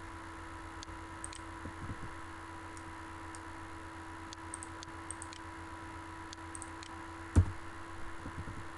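Light, scattered clicks of a computer mouse, with one louder thump about seven seconds in, over a steady electrical hum.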